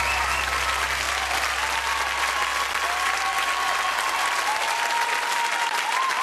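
Large arena audience applauding, dense continuous clapping with cheers and whoops rising over it.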